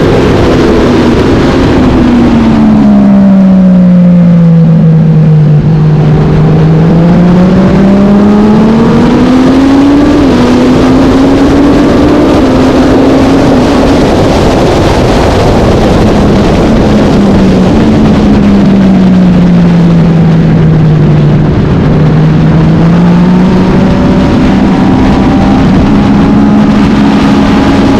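Racing motorcycle engine running hard, its pitch dropping steadily as it slows twice and climbing again as it accelerates, with steady wind and road noise underneath.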